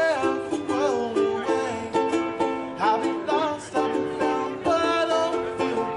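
Live acoustic pop-rock music: a strummed acoustic string instrument keeps a steady rhythm of about two strums a second, with a singer's voice gliding over it near the start and again near the end.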